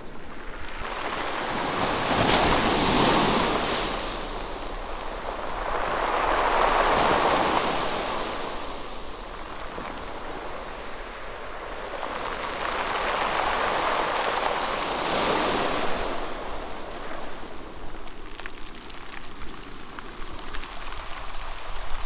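Sea surf breaking and washing up the beach, the rush swelling and fading every few seconds.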